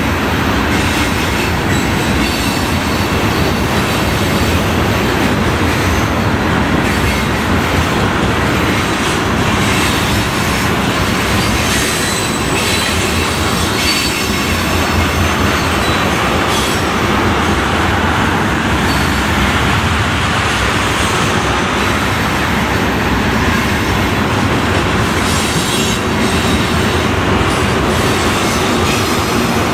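CSX freight train rolling past: a steady, unbroken noise of steel wheels on rail, with faint high wheel squeal now and then.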